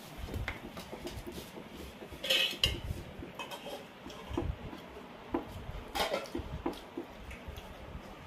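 Clinks and clatter of dishes being handled during a meal, a scatter of small knocks with louder clatters about two seconds in and again about six seconds in.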